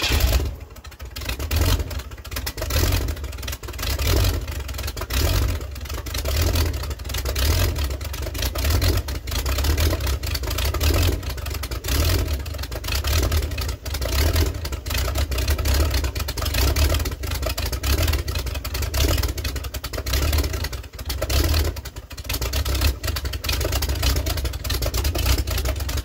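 Engine of a single-engine modified pulling tractor running on its cracked open exhaust pipes, first start after sitting two years. It is loud and rough, its level swelling and falling every couple of seconds as the throttle is worked, with rust and junk blowing out of the exhausts.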